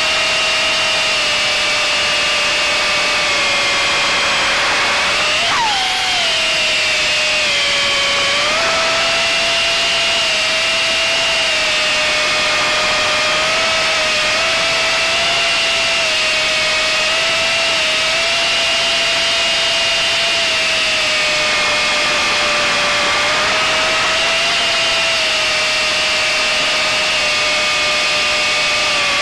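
Small FPV quadcopter's electric motors and propellers whining steadily, the pitch wavering with throttle. About six seconds in the whine swoops sharply up and drops back.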